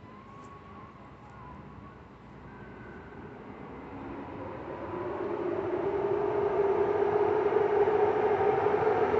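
Diesel engine of a DB VT628 diesel multiple unit running with a steady drone that grows much louder about halfway through.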